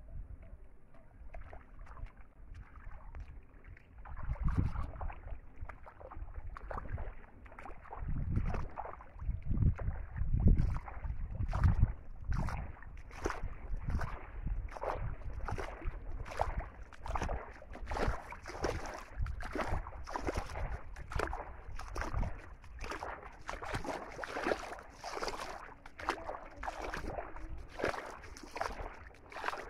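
Bare feet wading through shallow muddy water, a splash and slosh at each step at a steady walking pace, with a few heavier low thumps in the first half.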